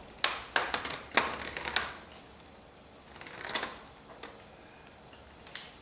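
Plastic retaining clips of a laptop screen bezel clicking and snapping loose as a guitar pick is worked along the seam between bezel and lid. The clicks come in a quick cluster over the first two seconds, then a few more scattered ones.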